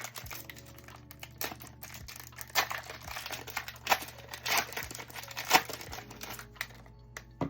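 Foil Pokémon booster pack wrapper crinkling and tearing as it is handled and ripped open, with sharp crackles; it dies down about six seconds in.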